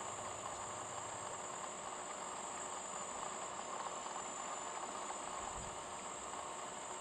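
Steady high-pitched insect chorus buzzing, over a low even hiss.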